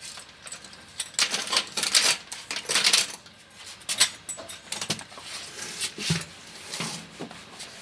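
Hand tools and metal parts clicking and clattering irregularly, in clusters of sharp clicks.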